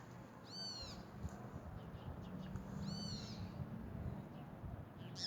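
Two short high-pitched animal calls, each rising then falling in pitch, about two seconds apart.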